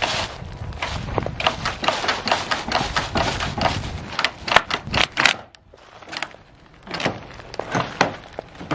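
Rapid, irregular clattering of sharp knocks and rattles for about five seconds, then a few separate sharp knocks.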